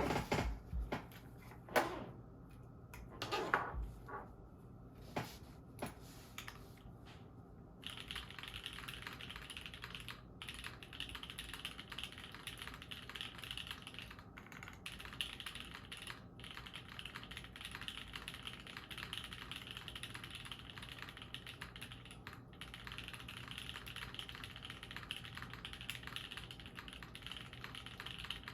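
Aluminium top-mount Jalter mechanical keyboard with SP Star Ube Crinkles keycaps being typed on in fast, continuous keystrokes from about eight seconds in. Before that come a few separate knocks.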